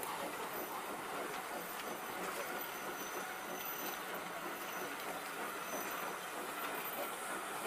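Heritage railway passenger carriages rolling past on a curved track: a steady noise of wheels running on the rails.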